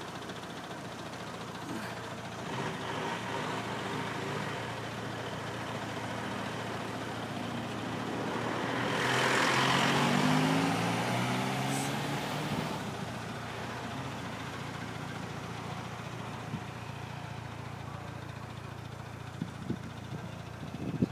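Engine running at a steady idle, then for a few seconds around the middle a Mitsubishi Lancer Evolution's engine gets much louder with a pitch that rises and falls as the car moves close by, before fading back to the steady hum. A few sharp clicks near the end.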